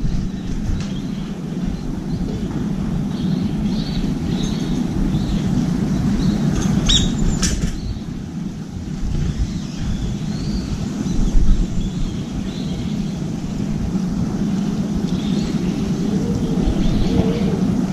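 Steady low rumble of city traffic with faint, scattered bird chirps. About seven seconds in comes a brief flutter as a brown-eared bulbul flies in and lands on the edge of the seed tray.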